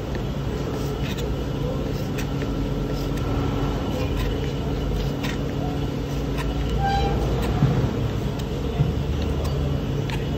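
Kitchen knife tapping now and then on a plastic cutting board as green chillies are sliced, over a loud, steady low background rumble.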